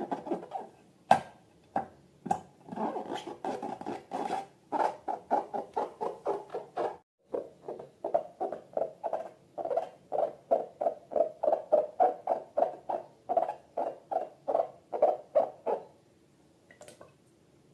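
Slime squishing in a balloon as it is squeezed over and over, a rhythmic run of short pulses about three a second that pauses briefly about seven seconds in and stops near the end.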